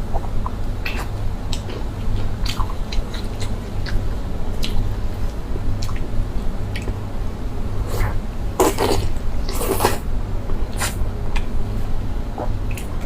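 Close-miked eating: wet, sticky chewing with scattered small clicks and smacks, and a few louder wet smacks about nine and ten seconds in, over a steady low hum.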